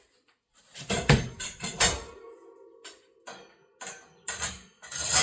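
Clothing-rack parts clattering and knocking together as they are handled and fitted during assembly, a string of sharp knocks and rattles with a ringing tone lingering between them.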